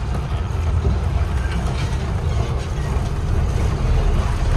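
Steady low rumble of a truck's diesel engine running.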